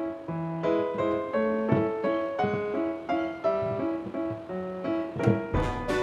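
Background instrumental music: a melody of short, evenly paced notes. About five seconds in, sharp hits and a deep bass come in.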